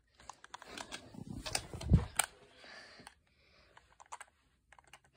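Handling noise from a phone being moved around: scattered light clicks and taps, with a dull thump about two seconds in, then quieter for the last couple of seconds.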